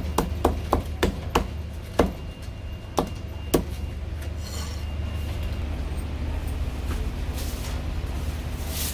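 Cleaver chopping marinated pig's ear on a wooden chopping block: about eight sharp chops, quick at first (about three a second) and then more spaced, stopping about three and a half seconds in. A steady low hum runs beneath.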